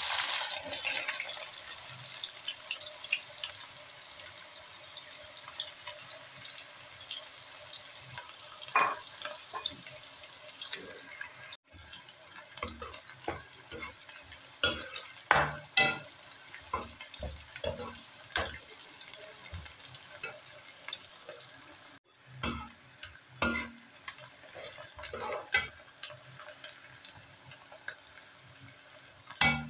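Sliced onions dropped into hot oil with cumin seeds in a metal karahi, hissing loudly the moment they land and then sizzling steadily as they fry. A metal ladle stirs them, knocking and scraping against the pan.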